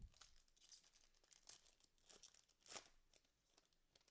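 Faint crinkling and tearing of a trading card pack wrapper being opened, in a run of short crackles with a louder one about two-thirds through.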